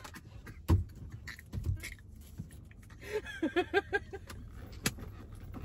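A woman laughing in a quick run of short bursts about three seconds in, with a few soft thumps before it and a sharp click near the end.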